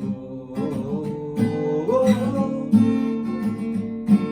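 Music: a song's instrumental passage, with chords strummed on acoustic guitar.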